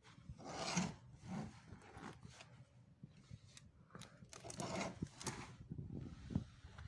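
Irregular rustling and rubbing of things being handled, with a few light clicks and knocks, loudest about a second in and again around five seconds in.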